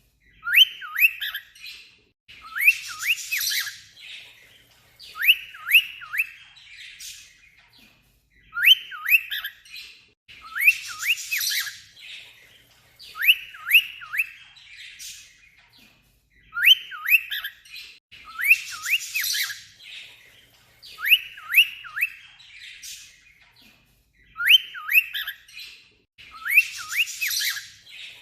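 Pet cockatiel imitating an alarm clock: quick runs of three or four sharp whistled chirps, like an alarm's beeping, repeated every few seconds at an even pace, with a harsh, raspy burst of chatter after every other run.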